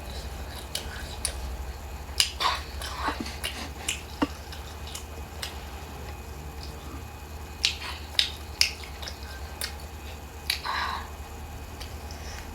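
Close-miked eating: chewing with scattered sharp mouth clicks and smacks, the loudest about two seconds in and again about eight seconds in, over a low steady hum.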